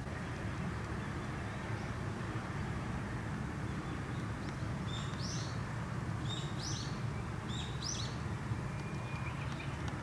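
Short high bird chirps in three quick clusters, starting about halfway through, over a steady low background noise.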